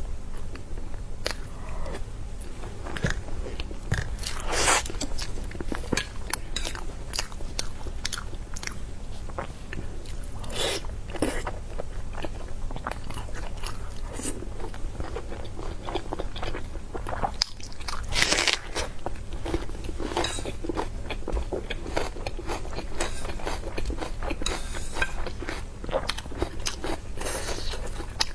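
A person biting and chewing meat: a dense, irregular run of short bites and chews, with a few louder bites scattered through.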